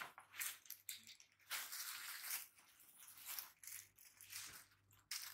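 Irregular rustling and crunching noises in short spells of a second or less, over a faint steady low hum.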